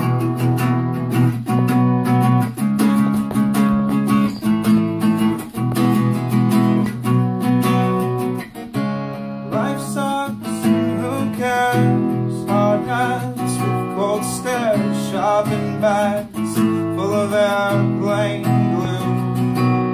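Small-bodied acoustic guitar strummed in steady chords, with a man's singing voice joining about halfway through.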